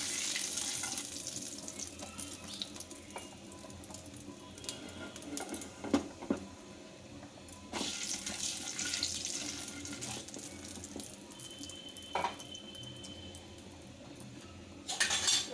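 Nigella seeds sizzling in hot fish-frying oil in a pan while a wooden spatula stirs them. The hiss swells near the start and again around eight seconds in, and two sharper knocks come about six and twelve seconds in.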